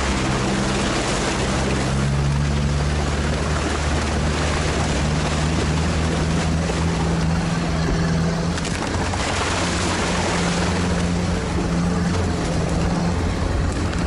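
All-terrain vehicle engine running steadily under way, its pitch shifting slightly now and then, over a constant rushing hiss.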